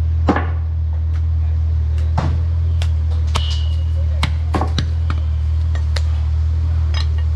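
Butcher's cleaver striking and scraping on a wooden stump chopping block while jointing goat meat: scattered sharp knocks, one with a short metallic ring about three and a half seconds in, over a steady loud low hum.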